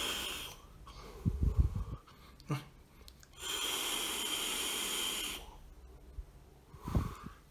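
Draws on an e-cigarette: a steady hiss of air pulled through the device that ends about half a second in, and a second draw lasting about two seconds in the middle. Short low thumps come between the draws and again near the end.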